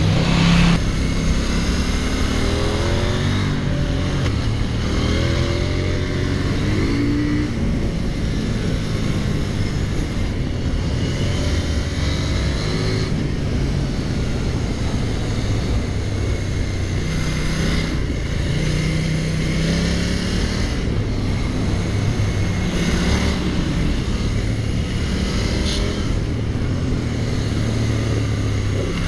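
KTM 890 Duke R's parallel-twin engine pulling hard through the gears, its note rising and dropping back again and again as it revs up and shifts.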